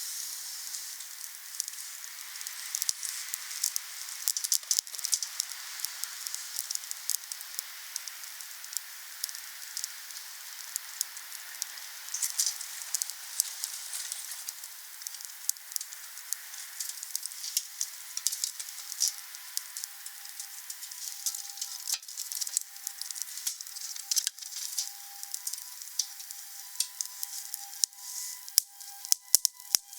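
Wood campfire burning, with a steady hiss and many sharp crackles and pops. In the second half faint thin whistling tones join the crackling.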